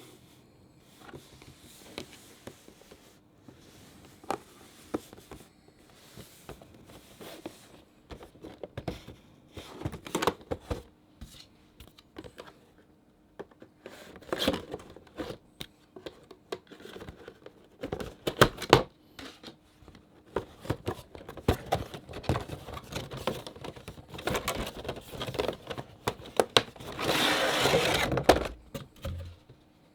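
Cardboard toy box and its plastic packaging being handled and opened: scattered taps, scrapes and crinkles, with a longer stretch of crinkling near the end.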